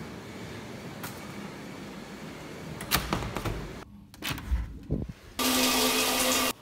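Hotel-room door with an electronic keycard lock: a few clicks and knocks as the lock releases and the handle and door move. Then, about five seconds in, a rain shower head runs: a loud, steady hiss of water spray with a low hum under it, which stops abruptly.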